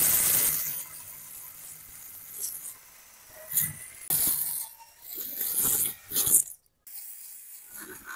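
Cordless drill spinning a sanding drum against the rusty metal inside a meat grinder's barrel, scraping in several uneven bursts. After a short break near the end, a smaller rotary tool runs more quietly.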